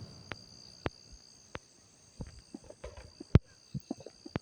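Crickets trilling steadily at a high pitch, with a few scattered sharp pops from fireworks, the loudest about three and a half seconds in.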